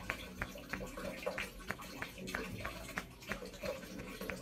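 Fingers rubbing a temporary tattoo off skin: a quick, slightly irregular run of short clicks, about four a second, over a low steady hum.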